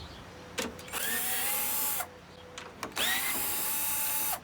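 Power drill fitted with a socket, run twice to back off the half-inch nuts on the mower's deck bracket. Each run winds up quickly, holds steady for about a second, then stops. There is a short click just before the first run.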